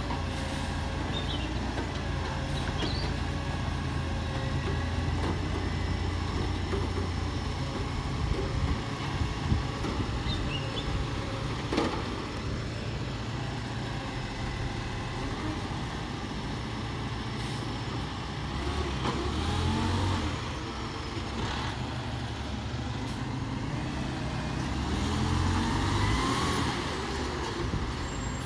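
Dennis Eagle garbage truck's diesel engine idling steadily, with a few sharp knocks partway through. The engine revs up twice in the second half as the truck works and then moves off.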